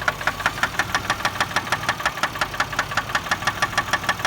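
2004 Chevy Malibu engine idling in park with a rapid, even knocking, several knocks a second, which the owner suspects may be a spun bearing.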